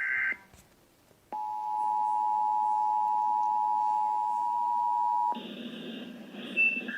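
The tail of an Emergency Alert System data burst, a pause of about a second, then the EAS attention signal: a steady two-note tone held about four seconds that cuts off suddenly. Faint hiss follows, with a few short high beeps near the end.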